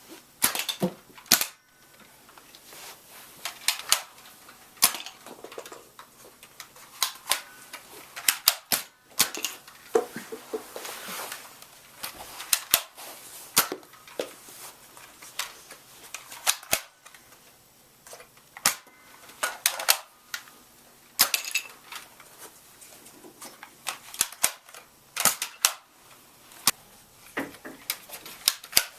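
Nerf blasters firing over and over, with foam darts smacking into and knocking over small plastic toy soldiers and cannons: irregular sharp clacks, often two or three close together, with short gaps between volleys.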